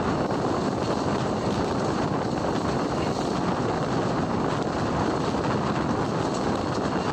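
Steady running noise of a passenger train moving at speed, its wheels rolling on the rails, heard from an open coach window.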